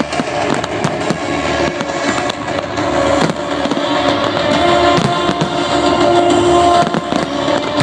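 Fireworks display: aerial shells bursting in quick succession with crackling, over music with long held notes.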